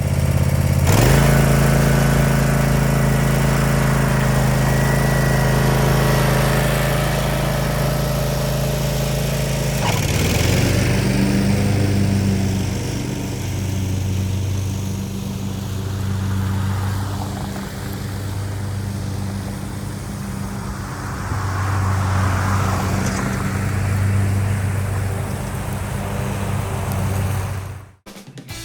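An engine running steadily. Its pitch rises about a second in, then dips and picks up again near ten seconds.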